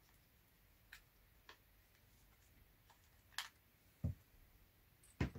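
Handling sounds of a DSLR camera being unscrewed from a plastic mini tripod's mount and lifted off: a few light ticks and clicks, then two low knocks on the tabletop about four and five seconds in, the second the loudest.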